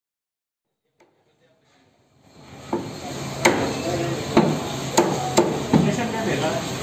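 A meat cleaver chops chicken pieces on a round wooden chopping block. After about two seconds of silence come about seven sharp chops, roughly one every half second, over steady background noise.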